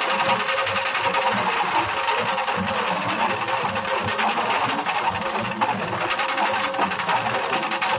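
Nashik dhol ensemble drumming: large barrel dhols and smaller drums beaten with sticks in a fast, dense, unbroken rhythm.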